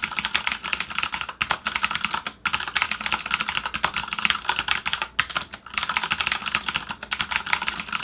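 Fast, continuous typing on a Corsair K70 LUX mechanical keyboard with Cherry MX Blue clicky switches: a dense stream of key clicks, with short pauses about two and a half seconds in and again around five and a half seconds.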